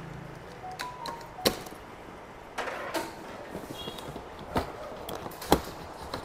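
Hands working at the top of a large cardboard shipping carton: about four sharp knocks or snaps spread out, with scraping and rustling of cardboard between them.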